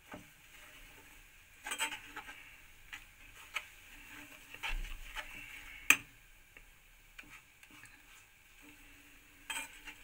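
Steel spoon stirring a thick ghee-and-jaggery kadha in a metal pan, scraping and clinking against the pan at irregular moments, the sharpest clink about six seconds in.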